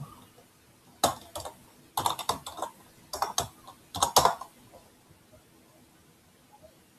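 Computer keyboard typing: four short runs of keystroke clicks in the first four and a half seconds.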